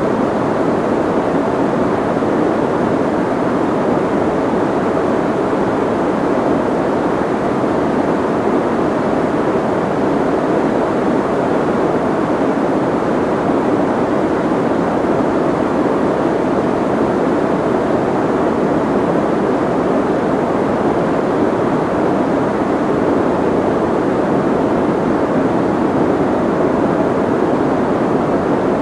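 Soft white noise, a steady muffled hiss with most of its weight in the low and middle range and little treble, unchanging throughout.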